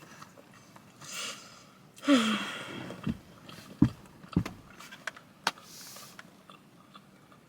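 Quiet eating and food-handling sounds: a soft rustle, a short falling 'mm' from the eater about two seconds in, then a few separate sharp clicks, like a plastic fork or container being handled.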